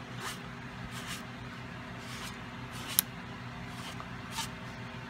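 Faint swishing and rubbing as nail-stamping tools are handled over a stamping plate and paper towel: several short, soft strokes and one sharp click about three seconds in, over a steady low hum.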